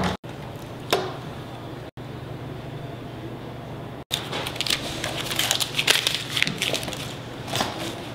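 Steady low room hum with one click about a second in, then from about four seconds in dense crinkling and rustling with small clicks as hands handle a binder and paper sticky notes.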